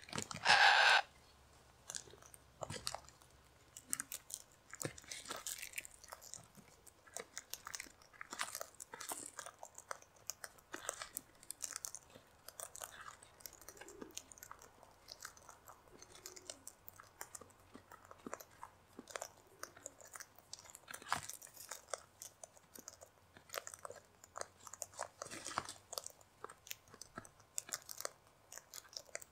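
Sulphur-crested cockatoos cracking seed in their beaks: a steady run of irregular small crunches and clicks. A short, loud cockatoo squawk comes about half a second in.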